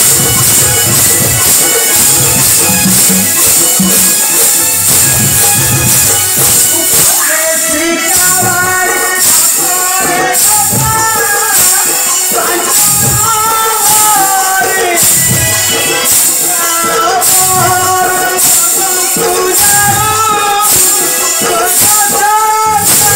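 Loud live folk music for an Odia stage drama, with steady jingling percussion throughout; a voice starts singing about seven or eight seconds in, with long bending notes.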